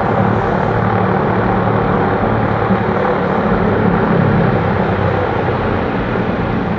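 Lockheed Super Constellation's four Wright R-3350 radial piston engines running steadily on the ground, propellers turning.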